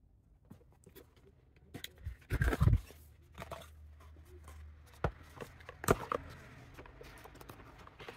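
Cardboard mailer box being opened by hand: a cluster of loud knocks and scrapes about two and a half seconds in as the lid flap is lifted, then the small paper product boxes packed inside are shifted, with a couple of sharp taps and light rustling.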